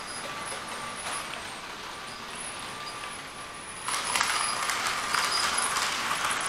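Model train running on the layout track: a steady electric motor whine with rolling wheel noise, which gets louder about four seconds in, with clicks from the wheels over the rail joints.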